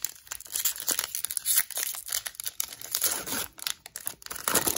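Foil wrapper of a Magic: The Gathering Zendikar Rising booster pack being torn open and crinkled by hand: irregular crackling and ripping, loudest near the end as the wrapper is pulled apart.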